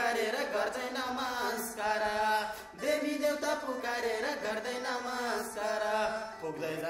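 Music: a voice chanting a melody over a steady low drone.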